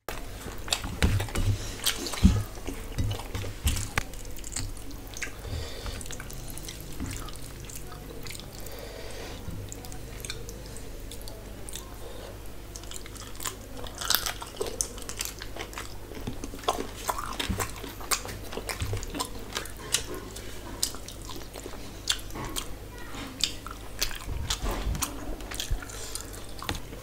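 A person eating rice and curry by hand: close, irregular chewing and lip-smacking, with small wet clicks of the hand mixing rice on the plate.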